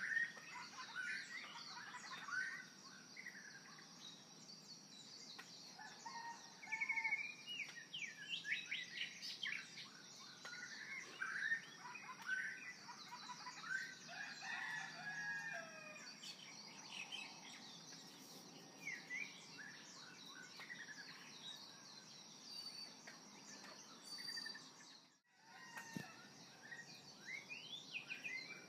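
Birds chirping and calling in many short, quick notes over a steady high-pitched tone. The sound drops out for a moment near the end.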